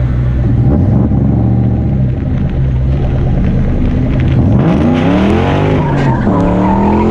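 1996 Mustang GT's four-valve V8 running at a low, steady speed, then revving hard about four and a half seconds in as the rear tyres break loose into a burnout. Tyre squeal joins the engine for a second or so. The revs dip and then climb again near the end.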